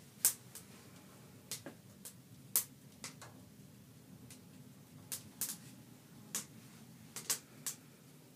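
About fifteen short, sharp clicks at irregular intervals, over a low steady hum.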